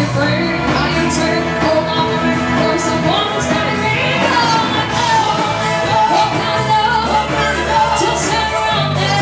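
Live pop-rock band playing through a PA, with women singing the lead into microphones over electric guitar, bass and keyboard and a steady beat.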